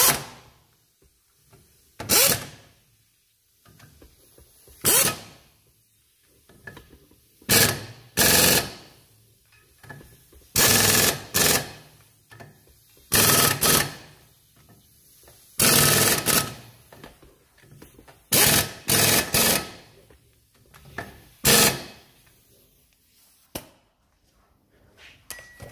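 Pneumatic impact wrench running in short repeated bursts, about a dozen of them spaced a second or two apart, as it tightens the bolts that hold a new brake disc to its hub.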